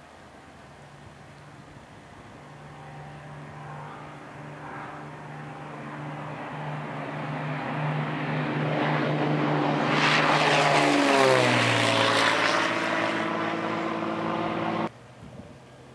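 A Columbia 400's turbocharged Continental six-cylinder engine and propeller climbing out after takeoff. The drone grows steadily louder as the plane comes toward and over the listener, drops in pitch as it passes, then cuts off suddenly near the end.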